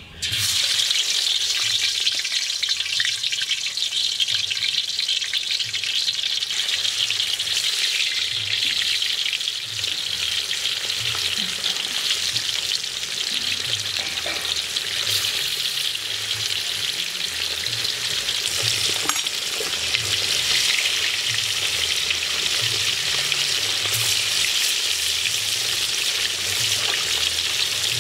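Pieces of marinated walking catfish frying in hot oil in a karahi, starting with a sudden sizzle as the first piece goes in and then a steady, loud frying hiss.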